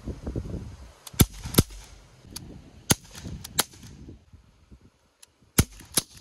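CO2-powered Powerline BB pistol firing about six sharp pops in quick pairs, with a few seconds between the pairs.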